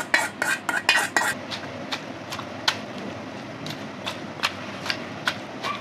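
A metal spoon scrapes and knocks against a metal pan, tipping fried tindora, green chillies and tomatoes into a stone mortar, for about the first second. Then a stone pestle pounds the soft vegetables in the stone mortar, with single knocks about once or twice a second.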